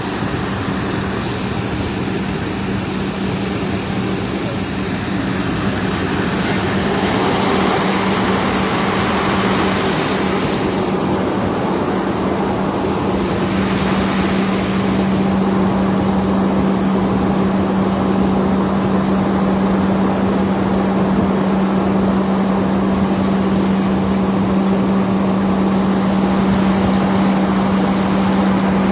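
A fire truck's engine running with a steady, even drone.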